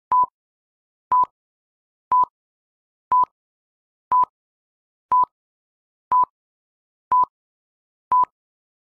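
Film-leader countdown beeps: a short electronic beep of one steady pitch, once a second, nine times, with silence between.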